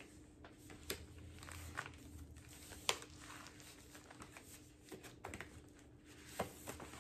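Plastic shrink wrap being peeled off a sealed vinyl LP: soft crinkling and rustling with scattered sharp ticks, the sharpest about three seconds in.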